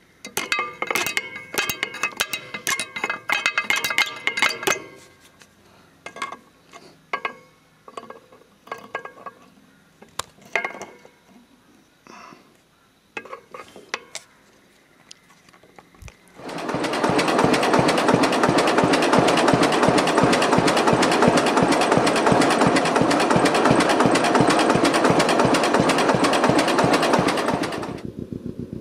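For about 16 s, scattered metallic clicks of pliers working a split pin through a castellated nut and bending its legs over. Then a John Deere two-cylinder tractor engine starts up abruptly as a steady, loud, fast, even exhaust beat, dropping to a quieter beat near the end.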